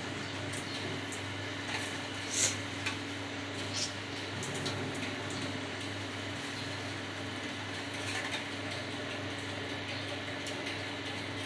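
Boiled soya chunks being squeezed by hand to press the water out: a few brief, soft squelches and drips over a steady low background hum.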